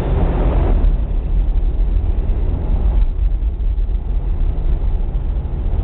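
New York City subway train pulling out of the station: a loud, steady low rumble. The higher part of the noise falls away about a second in, and the deep rumble carries on.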